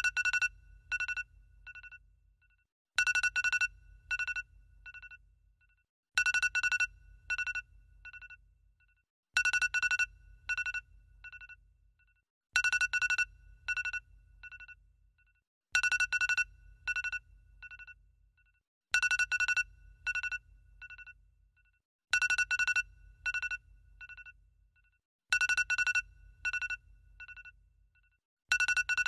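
An electronic ringtone-like tone playing on a loop: a quick run of about five beeps at one pitch, each quieter than the last, repeating about every three seconds, with a low hum under each run.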